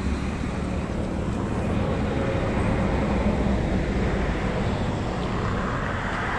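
Steady rumble of roadside traffic, swelling a little partway through as vehicles pass.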